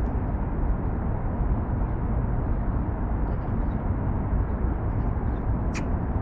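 Steady rumble of city traffic from the nearby bridge, heaviest in the low range. A brief sharp high sound cuts in near the end.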